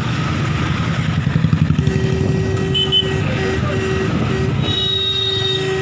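Busy street traffic heard from a moving two-wheeler: a low rumble of motorbike and auto-rickshaw engines. A steady tone joins about two seconds in, broken by a few short gaps, and a brief double chirp comes near the middle.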